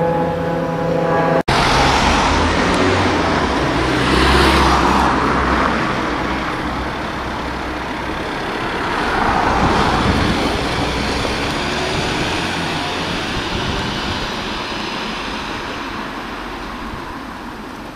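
Fire-brigade van's engine and tyres as it pulls out and drives away, swelling twice and slowly fading. A steady droning tone at the start cuts off suddenly about a second and a half in.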